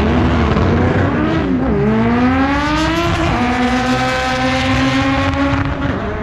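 Drag race cars accelerating hard down the strip, their engine note climbing and dropping back at gear changes about two and three seconds in.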